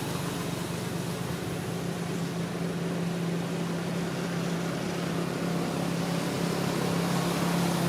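A steady motor hum, growing slightly louder toward the end.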